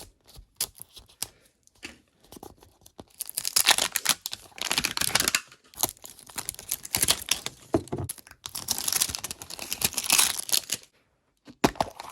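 Plastic wrapping being torn and crinkled off a Mini Verse toy capsule, with small clicks and taps of the plastic; two longer stretches of tearing, the first about three seconds in and the second about eight and a half seconds in.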